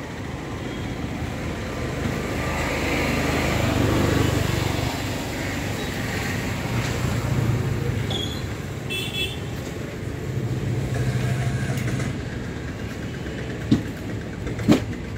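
Road traffic passing with a steady rumble, with a short vehicle horn toot about nine seconds in. Two sharp knocks near the end.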